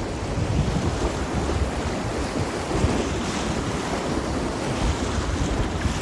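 Rushing water of a swollen river around a packraft, with wind rumbling on the microphone.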